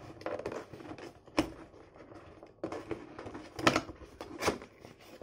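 Cardboard packaging handled and its outer printed sleeve slid off the inner box. Rubbing and scraping with a few sharp knocks.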